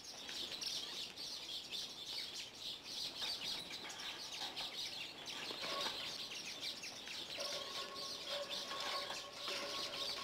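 Many small caged birds chirping and twittering at once, a dense, unbroken chorus of short high calls. A steady held note joins about seven seconds in.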